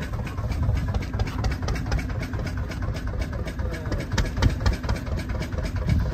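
Fishing boat's engine idling, a steady low rumble with a fast, even throb.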